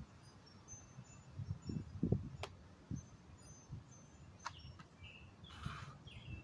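Birds chirping in short high calls, with a few low thumps around two seconds in and a brief gravel crunch about five and a half seconds in as hands are planted on gravel for a burpee.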